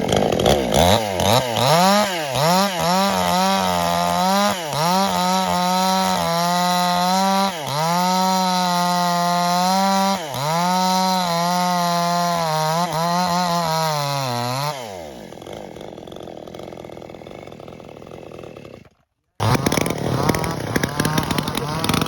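Small two-stroke chainsaw engine held at high revs with a quick throttle dip every couple of seconds. About fifteen seconds in it is shut off and winds down rapidly, and after a quieter stretch another engine is heard running loudly.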